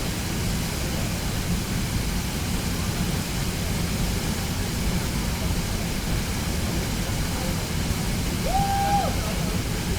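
Steady rushing noise of a waterfall, heaviest in the low end, with one brief held tone near the end.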